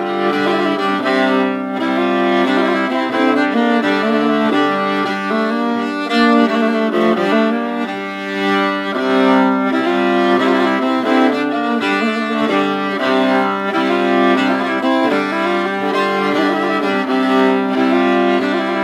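Background music of slow, sustained held notes.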